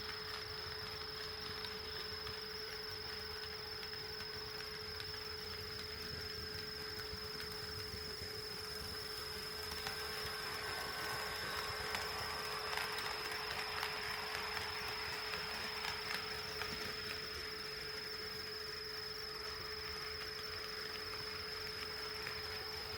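An HO scale model train running past on the track, louder for several seconds in the middle with a few faint clicks, over a steady high-pitched electrical whine.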